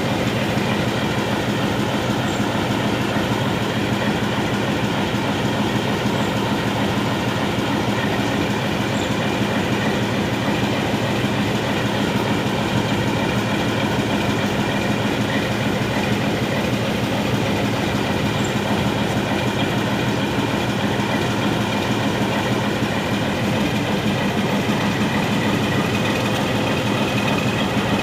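Indian Railways YDM4 metre-gauge diesel locomotive with its ALCO 251-series diesel engine idling, a steady deep running hum with a fine even pulse and a higher steady whine above it.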